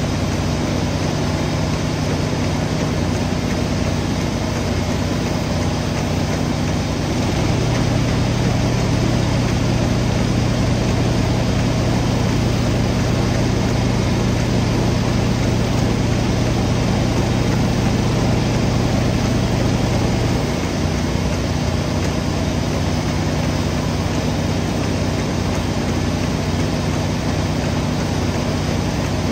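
Engine running steadily at an even pitch. A deeper hum joins about seven seconds in and drops away around twenty seconds.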